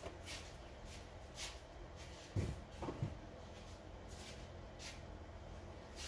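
Faint knocks and rustles of a person moving about and handling objects over quiet room tone, with two soft thuds about two and a half and three seconds in.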